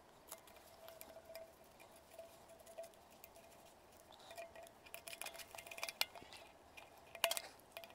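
Scissors snipping away a thin rubber glove stretched over a plastic pipe fitting: a string of small clicks and snips, the sharpest two about six and seven seconds in.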